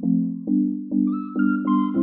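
Background music: a steady pulse of decaying keyboard-like notes, about two a second, with a higher melody coming in about halfway through.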